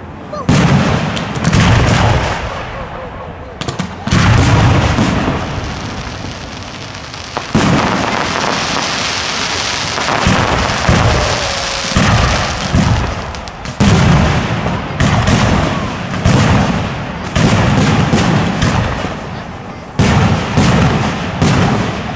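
Aerial firework shells bursting in quick succession at a display: about a dozen sharp bangs, each dying away in a long rolling rumble, with a stretch of hissing in the middle.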